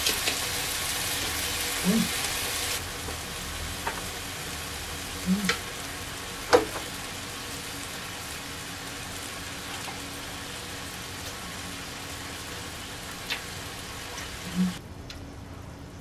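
Korean beef striploin steaks sizzling steadily on an electric grill pan, with a few sharp clicks. The sizzle drops away abruptly about a second before the end.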